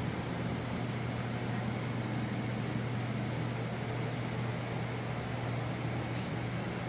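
Electric fans running: an even whir over a low, constant hum.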